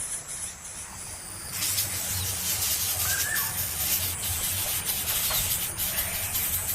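Crickets chirping in a fast, even pulsing rhythm; about a second and a half in, a louder steady hiss comes in and covers them, with a few faint short chirps in the middle.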